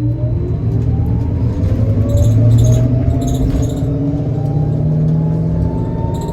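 Electric drive whine of a 2015 New Flyer XT60 trolleybus with a Kiepe drive system and Skoda traction motor, rising steadily in pitch as the bus accelerates away from a stop, over a low hum.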